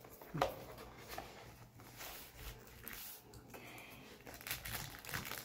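Faint rustling and soft taps of cardboard and packaging being handled while a booster box of trading cards is opened, with one sharper click about half a second in.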